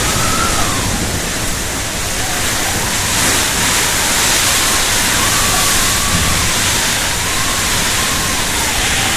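Heavy rain falling in a steady, dense hiss during a thunderstorm. A faint, thin wavering tone runs underneath it.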